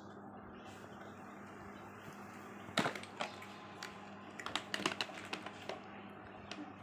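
Light plastic clicks and knocks of toys being handled, including a toy car in its plastic blister pack, starting about three seconds in, over a steady low hum.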